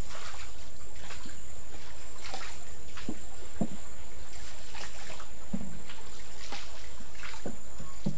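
Oars of a small rowed boat dipping and splashing in canal water, in irregular strokes about once a second, over a steady low rumble.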